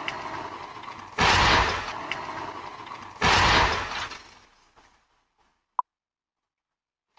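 A vehicle crash picked up by a doorbell camera's microphone: two loud smashing impacts about two seconds apart, each dying away within a second, with breaking and shattering noise. The sound then fades out to silence, broken once by a short beep.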